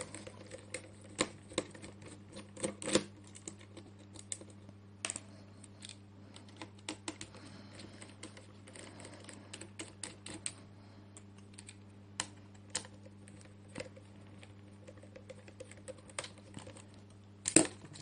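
Irregular small clicks and taps of a screwdriver turning out the screws that hold the hard drive bracket in a Lenovo Ideapad 100-15IBD laptop, with a louder clack near the end, over a faint steady low hum.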